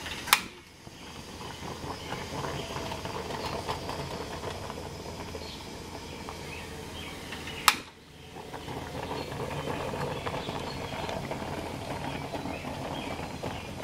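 Stainless stovetop coffee percolator perking on a portable gas burner turned down low: a steady bubbling, crackling gurgle over the burner's hiss. Two sharp clicks cut in, one just after the start and one about eight seconds in.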